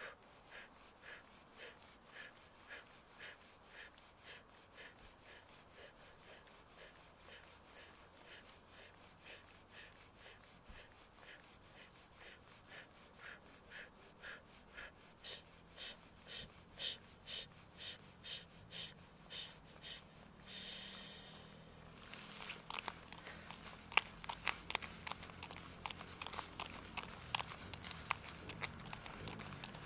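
A woman's rhythmic breathing, short quick breaths at about two a second that grow louder towards the middle, then one long breath a little after twenty seconds. After that, the patter of jogging footsteps and the rustle of a running jacket.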